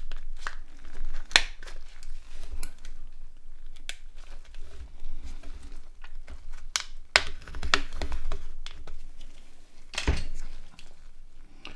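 Plastic feature-phone housing being handled and taken apart by hand: irregular clicks and snaps of plastic parts with rubbing and handling noise between them.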